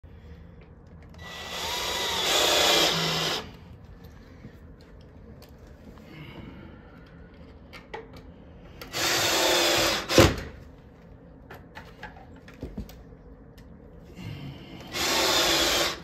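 Cordless drill driving screws to mount a storm door closer's jamb bracket, in three runs: the first about two seconds long and swelling, the other two about a second each. A sharp knock comes just after the second run, with small clicks between runs.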